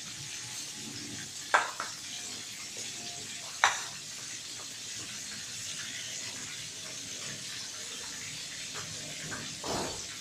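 A whole fermented tilapia frying in oil in a pan, with steady sizzling. Two sharp pops of spitting oil come about one and a half and three and a half seconds in, and a duller pop comes near the end.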